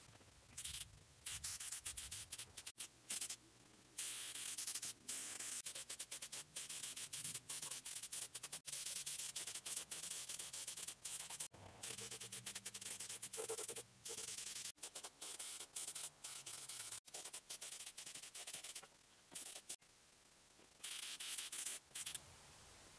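DeVilbiss quart-pot air spray gun, running on about 30 pounds of air, hissing in repeated bursts as the trigger is pulled and released while spraying a finish coat of paint. The bursts last from under a second to several seconds, with short gaps between them.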